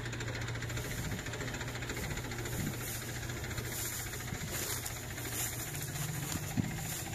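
Diesel engine of heavy farm or earth-moving machinery idling steadily: an even low hum with a hiss over it.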